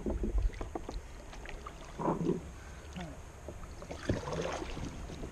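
Kayak paddle handling: scattered knocks and clicks of the paddle and gear against the kayak, with light water sounds from the paddle.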